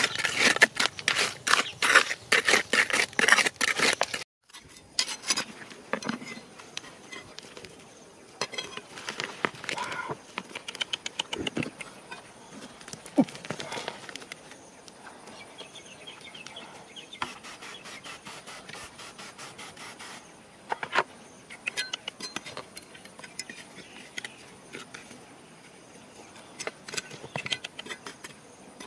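A hand trowel digging rapidly in wet mud, a fast string of wet scraping strokes. About four seconds in this breaks off, and softer, scattered scraping follows as hands and a trowel brush through dry, gravelly soil.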